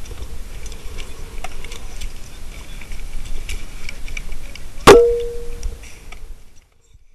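Scattered small knocks and clicks of dive gear on the boat, then a diver's giant-stride entry into the sea about five seconds in: one loud, sharp smack with a brief ringing. The sound then cuts off almost to silence as the mask's microphone goes under water.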